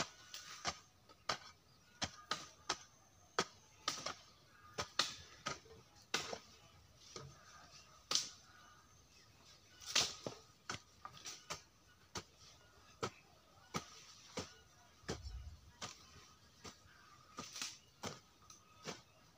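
Long-handled hoe chopping into and scraping the soil: a run of sharp, irregular chops, about one or two a second. A faint steady high tone runs underneath.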